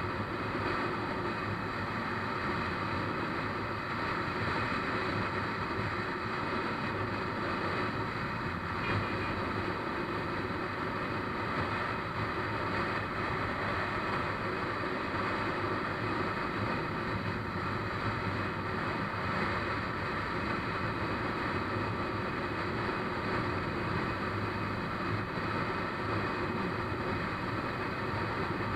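Motorbike cruising at a steady speed, its engine and tyre noise mixed with a steady rush of wind on the microphone.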